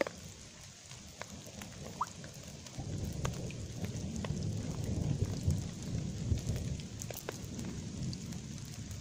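Light rain with scattered drops ticking. A low rumble of distant thunder swells about three seconds in and rolls for several seconds.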